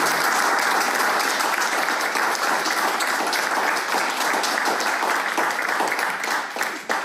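Audience applauding steadily, tailing off right at the end.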